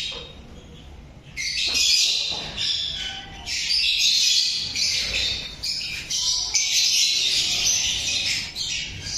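A flock of caged lovebirds chattering: many shrill, overlapping chirps and squawks that swell up about a second and a half in and keep on without a break.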